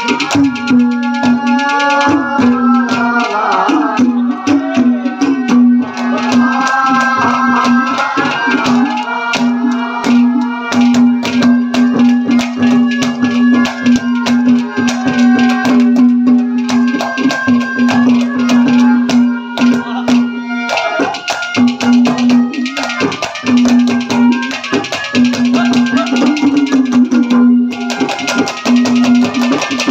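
Instrumental interlude of Haryanvi ragni folk music: a melodic lead over a steady held low note, driven by hand drums and a rattling percussion beat.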